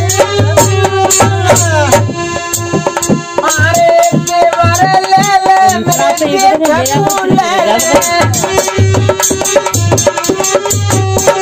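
Rajasthani folk music: a dholak drum beats a steady rhythm under a harmonium melody with gliding melodic lines.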